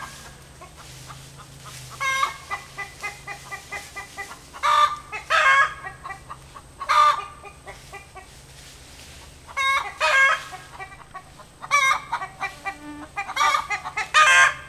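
Chickens calling in loud, repeated bursts every second or two: a hen's egg song announcing she has just laid an egg, with the rooster answering in the same call.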